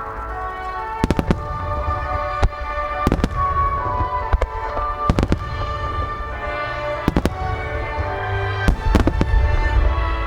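Fireworks shells bursting in a string of sharp bangs every second or two, over a deep rumble and music playing throughout.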